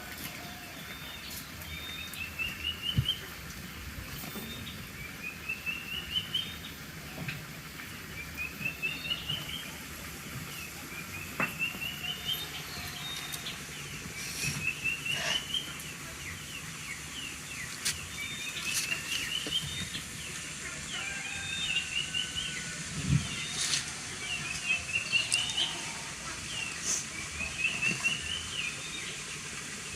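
A songbird repeating a short phrase of quick notes that rise in pitch, every two to three seconds, with scattered sharp clicks in between.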